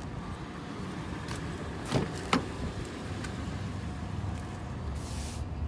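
Two short clicks about two seconds in, a rear side door of a 2017 Toyota 4Runner being unlatched and opened, over a faint steady outdoor background. A brief rustle near the end.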